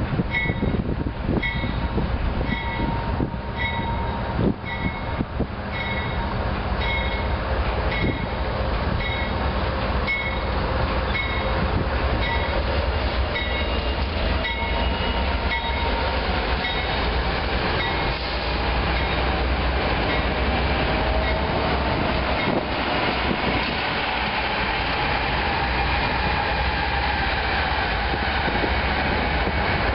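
CSX double-stack freight train passing close by: the diesel locomotives rumble past, followed by the steady rolling noise of the stacked container cars. A high ding repeats about every two-thirds of a second for roughly the first twelve seconds, then stops.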